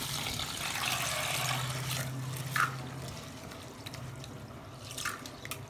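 Water poured from a steel bowl onto basmati rice in a plastic tub to soak it, with a hand stirring the rice in the water. The pouring lasts about three seconds, then the sound drops to quieter swishing with a few small clicks.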